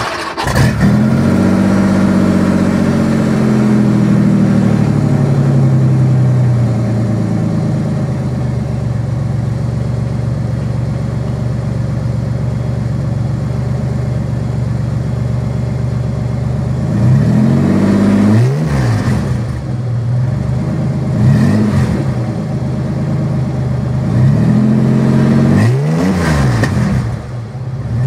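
The GM 3800 Series II V6 in a custom Porsche 914 catches as it starts, exhaling through a single Flowmaster muffler. It runs at a fast idle that settles lower over the first several seconds, then idles steadily. Near the end it is revved three times, each rev rising and falling back to idle.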